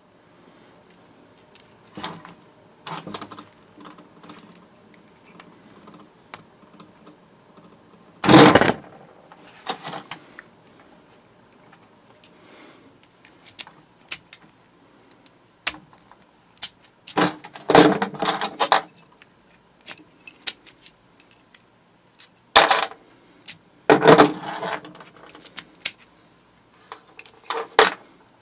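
Small Brinks brass padlocks and their keys being handled: keys working in the locks, shackles clicking, and keys and locks jangling and clacking together in scattered short bursts of clicks and rattles.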